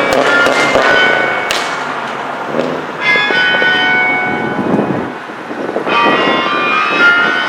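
Tower bells ringing, struck afresh about every three seconds, each new stroke layering over the ringing of the last.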